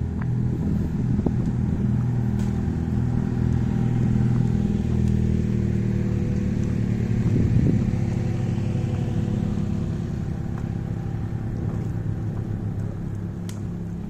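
An engine running with a steady low hum, loudest around the middle and slowly fading toward the end.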